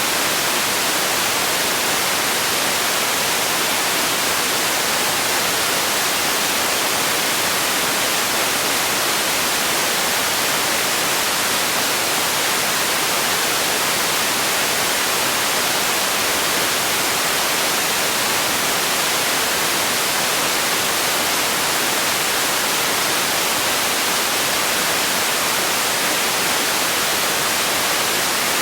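Steady white noise: an even, unbroken hiss, brighter in the treble than in the bass, that never changes.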